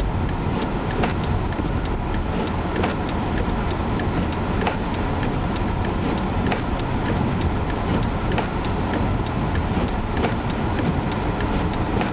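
Steady road and engine rumble inside the cabin of a Chevrolet Malibu Classic driving through a blizzard. Sharp ticks keep coming, several each second.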